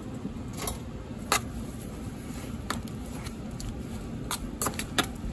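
A spoon stirring a pot of pork and beans with sausage, butter and sugar: a wet stirring sound with about seven sharp, irregular clicks of the spoon against the metal pot.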